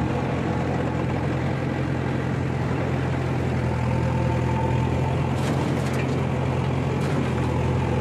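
JCB 3DX backhoe loader's diesel engine running steadily under load as the backhoe digs and swings, with a few faint clatters a little over halfway through.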